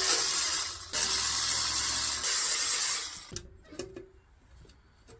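Two long bursts of hissing spray, followed by a few light clicks near the end.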